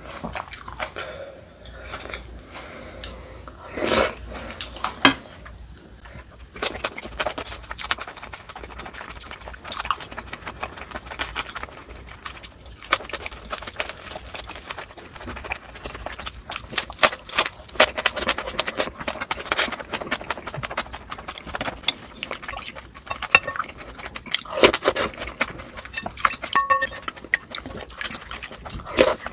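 Close-miked eating: wet chewing and mouth noises over noodle soup and green onion kimchi, with many short clicks of wooden chopsticks and a wooden spoon against a glass bowl.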